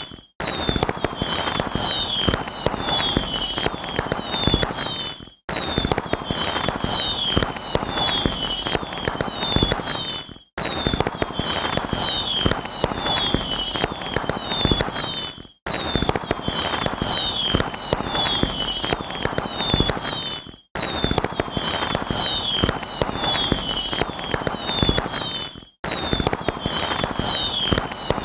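Fireworks crackling and popping, with short whistling chirps over the crackle. It is a clip of about five seconds, looped with a brief silent break between repeats.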